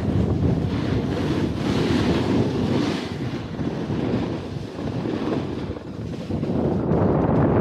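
Wind buffeting a small action camera's microphone during a fast snowboard descent, mixed with the hiss of the snowboard's edge scraping over groomed snow, swelling and easing with the turns.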